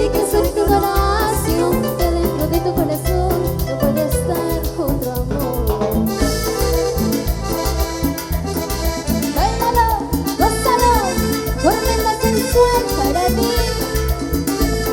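Live band playing an instrumental passage of Latin dance music with a steady beat; a lead instrument plays several quick upward slides between about nine and twelve seconds in.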